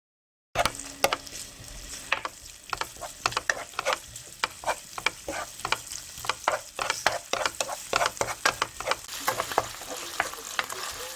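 Food frying in a pan: a steady sizzling hiss with many irregular sharp clicks and crackles, starting about half a second in.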